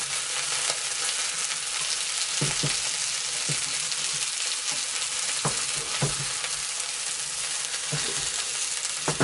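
Breaded haddock fillets frying in coconut oil in a pan: a steady sizzle, with several short taps of a spatula against the pan as a fillet is lifted to be flipped.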